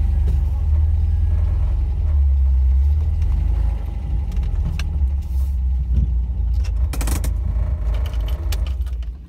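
A 1968 MGB-GT's 1.8-litre four-cylinder engine, heard from inside the car, running with a steady low rumble while the car is turned into a parking spot, then a little quieter from about four seconds in once the car has stopped and the engine idles. A few sharp clicks come about seven seconds in.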